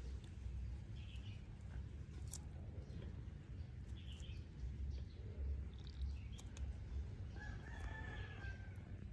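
A rooster crowing once, a single drawn-out call about a second long near the end, over a steady low rumble.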